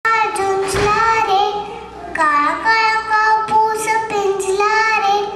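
A young girl singing solo into a microphone, holding long notes with a brief pause for breath about two seconds in.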